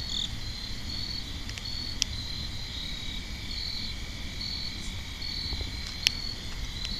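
Crickets chirping in a steady rhythm on a fall night, with two sharp pops from a campfire, about two seconds in and near the end.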